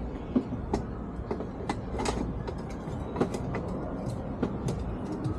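Irregular clicks and knocks of a hard plastic air horn assembly being handled and test-fitted against a motorcycle's body parts, over a steady low hum.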